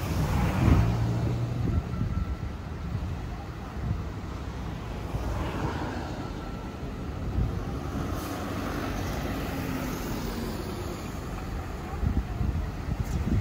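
Diesel engine of a highway coach running at low speed as it creeps out of the terminal exit, mixed with passing street traffic, with a louder pass about a second in. Wind rumbles on the microphone.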